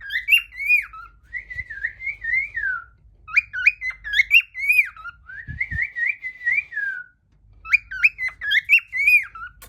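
Pet lovebird whistling in five short runs of swooping, warbling notes with quick upward flicks, pausing briefly between runs.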